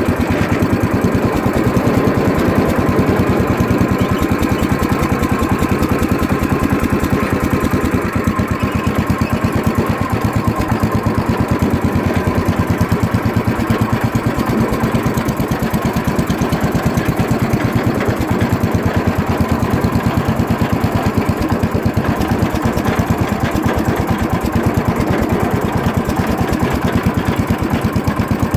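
Wheel Horse Raider 10 garden tractor engine running steadily as the tractor is driven across grass, with a fast, even firing beat.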